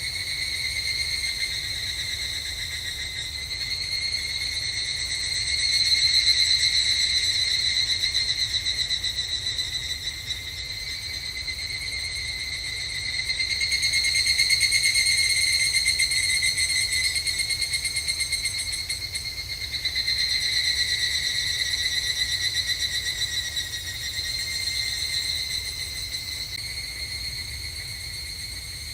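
Higurashi evening cicadas (Tanna japonensis) singing: a rapid, pulsing, high ringing song that swells and fades in overlapping phrases, loudest about six and fourteen seconds in.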